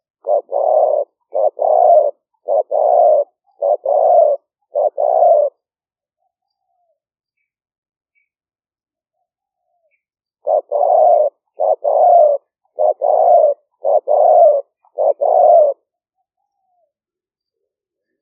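Spotted dove cooing: two phrases of about five paired coos each, a short note followed at once by a longer one, with a pause of about five seconds between the phrases.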